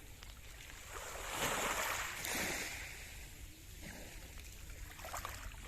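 Small waves of a calm Mediterranean sea washing onto the shore. The biggest swell comes about a second and a half in, with two smaller ones near the end.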